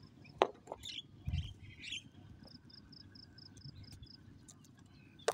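Faint birds and insects calling: short chirps and whistles in the first two seconds, then a high trill pulsing about six times a second. A sharp click at the very end.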